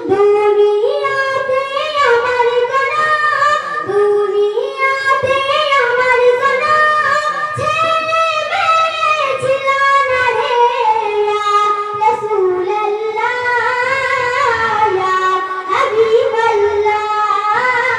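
A girl singing a Bengali gojol, an Islamic devotional song, solo into a microphone with no instruments, in long held notes that glide between pitches.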